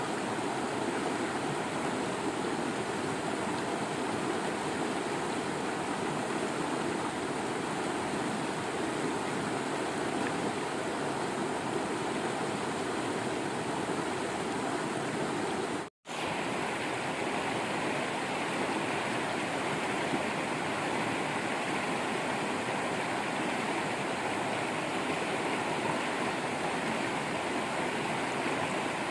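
Waterfall water rushing and splashing steadily. Just past halfway the sound cuts out for a split second and resumes slightly brighter, like a splice in the recording.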